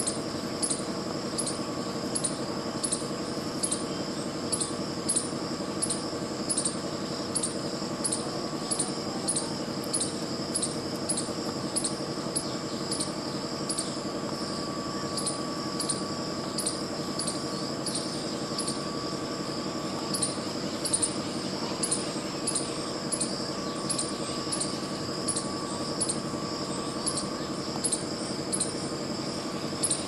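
Insects chirping: a sharp, high chirp repeats about twice a second over a steady high-pitched drone, with a steady lower hum underneath.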